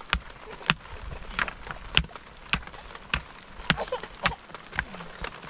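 A run of sharp knocks or taps, fairly regular at just under two a second.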